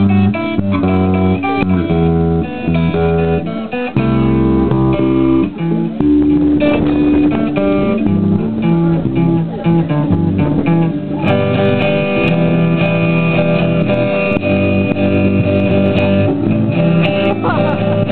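Two guitars played live, one an electric guitar: held low notes and chords, turning to busier strumming about eleven seconds in.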